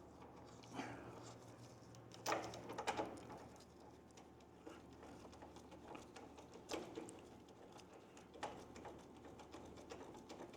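Faint, scattered clinks and scrapes of hand tools and a new spark plug being handled and fitted into the engine, with the loudest cluster about two to three seconds in.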